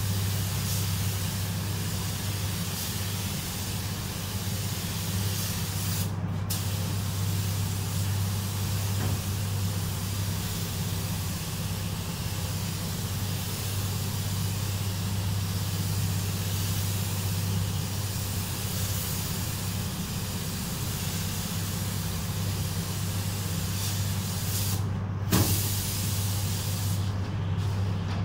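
Gravity-feed compressed-air spray gun hissing steadily as it sprays metallic paint. The hiss cuts out briefly twice as the trigger is let go, about 6 seconds in and again near the end with a short knock, then stops. A steady low hum runs underneath.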